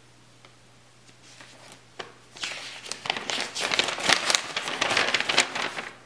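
A folded sheet of paper being unfolded and opened out, crinkling and rustling; a quiet start, a small snap about two seconds in, then steady crackling handling of the paper for most of the rest.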